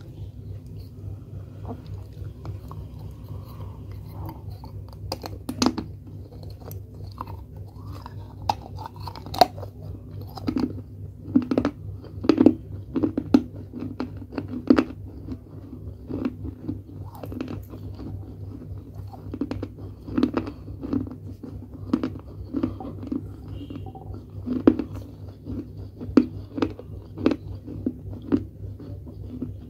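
Close-miked crunching and chewing of pieces of a small clay pot: sharp, crisp crunches at irregular intervals, starting about five seconds in. A steady low hum runs underneath.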